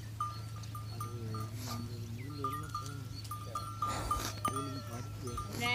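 A flock of sheep grazing, several of them bleating at intervals, with a small bell clinking among them; one louder bleat comes near the end.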